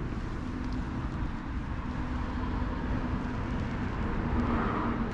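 Steady outdoor background noise: a low rumble with a faint, wavering hum and no distinct events.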